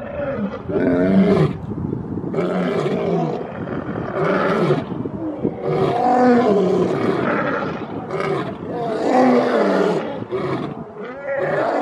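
Male lions roaring: a series of long, deep roars with short pauses between them.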